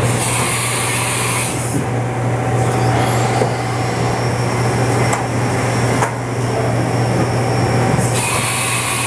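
Steady low machinery hum in a machine shop, with two hissing bursts of about a second and a half each, one at the start and one near the end.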